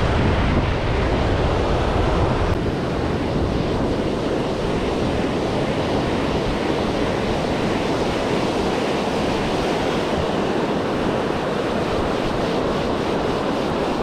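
Surf washing and breaking over a rocky shore, a steady rush of water. Wind buffets the microphone with a low rumble that drops away about two and a half seconds in.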